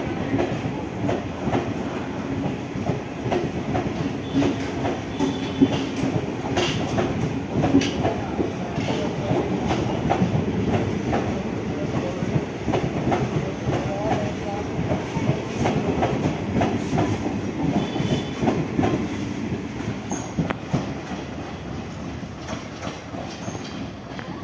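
Indian Railways express passenger coaches rolling past, their wheels clattering steadily over the rail joints. The clatter grows a little quieter near the end.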